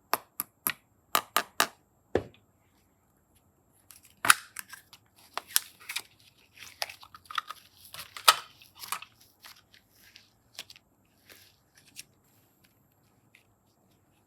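Close-up handling sounds of crafting with clay and slime: a quick run of about six sharp clicks, a duller knock, then several seconds of crinkling, crunching ticks and scrapes that die away near the end.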